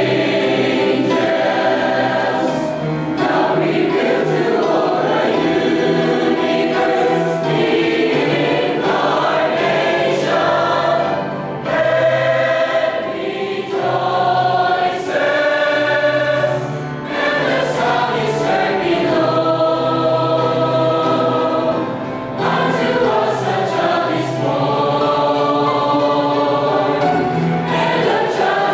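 Large mixed choir of men and women singing a gospel anthem in harmony, in held chords that change every second or two.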